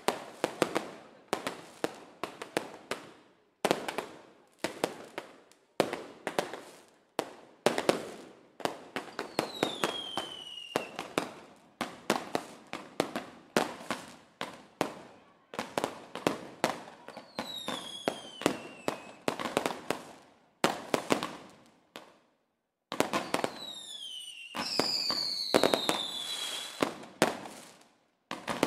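Fireworks display: a rapid string of sharp bangs and crackles, with whistling shells that fall in pitch several times. After a brief pause a little past the middle, the bangs come denser and louder near the end, with a long falling whistle.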